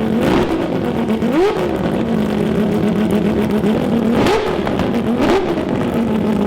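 Six-rotor rotary engine idling steadily, with four short, sharp throttle blips that rise and fall quickly in pitch.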